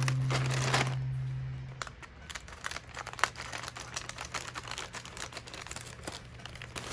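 Packaging crinkling and rustling as it is handled, a run of small irregular crackles. A guitar note from the background music rings on and fades out over the first two seconds.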